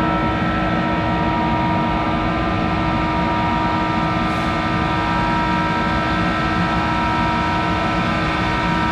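Monarch 10EE metal lathe running with its chuck spinning: a steady machine hum and whine made of several fixed tones over a low rumble.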